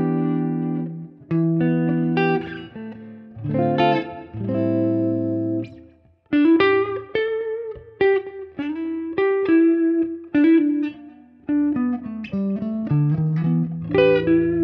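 Electric guitar played clean through a Centerpunch humbucker in the neck position, in full humbucker mode rather than coil-split: struck chords that ring out for the first half, a brief pause near six seconds, then picked single-note lines.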